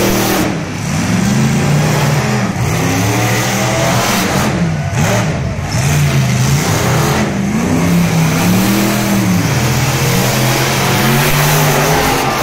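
Monster truck engine revving hard, its pitch rising and falling again and again, with a heavy rush of noise throughout.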